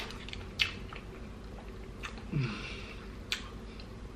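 Close-miked chewing of a mouthful of burger, with wet lip smacks and a few sharp mouth clicks. A short falling hum of enjoyment comes about two and a half seconds in.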